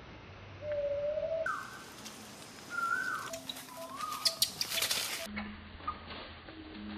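A series of short whistle-like animal calls, each a single rising or falling note, with a cluster of sharp clicks and rustles about four to five seconds in.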